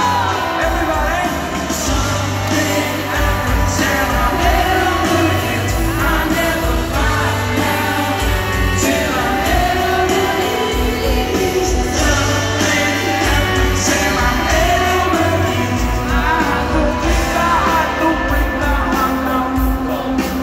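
Live pop-rock band playing through a large concert PA, heard from the audience: a male lead vocal over electric guitar, keyboards, bass and drums.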